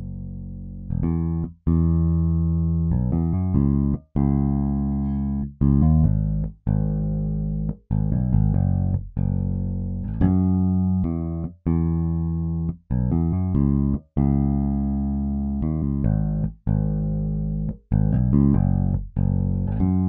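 Sampled electric bass from EZbass, clean DI tone, playing a slow contemporary R&B groove: sustained low notes with sharp attacks and short gaps between phrases.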